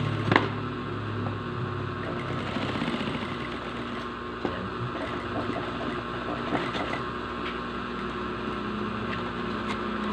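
Industrial sewing machine running steadily as it stitches bias binding onto the edge of a clear plastic bottle sheet. A single sharp click comes just after the start.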